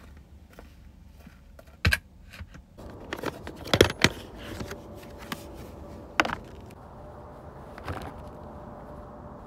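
Hard plastic storage tote handled: a knock as it is set down, then a loud double click of its latches and lid about four seconds in, with further scattered clicks and knocks as it is opened and clothes are packed.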